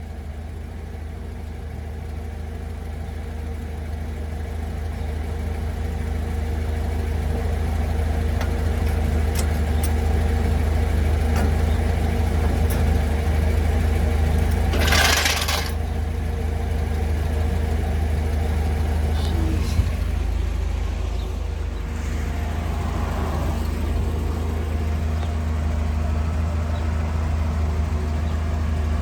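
1962 Chevrolet Impala's engine idling steadily, with a short burst of hiss about halfway through and a click a few seconds after.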